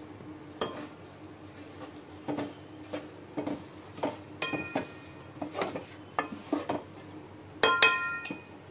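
Wooden spatula stirring a wet broken-wheat mixture in a non-stick pan, knocking and scraping against the pan about a dozen times. The pan rings briefly twice, the loudest strokes coming near the end.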